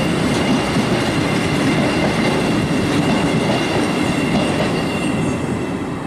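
Empty two-deck car-transporter freight wagons rolling past on the rails, a dense steady rumble with a faint steady high ringing tone above it. The noise eases off near the end as the last wagon goes by.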